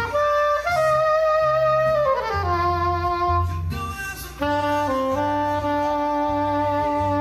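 Soprano saxophone, played on an inexpensive $24 mouthpiece, sounding slow, long held notes, with a quick downward run about two seconds in and a long held low note through the second half.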